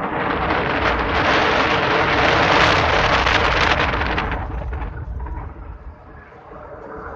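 Wind buffeting a phone microphone as a tower swing ride's chain-hung seat flies round at speed: a loud, even rushing that starts suddenly, is strongest about three seconds in, and dies down after about five seconds.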